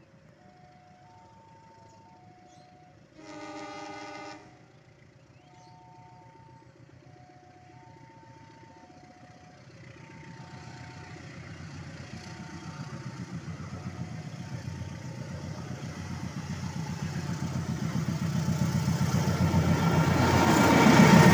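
Diesel locomotive of a passenger train approaching up a grade under power, its engine growing steadily louder with a pulsing beat until it passes close by near the end. Early on, an alternating two-tone warning chime rings about once a second, and a single horn blast sounds about three seconds in.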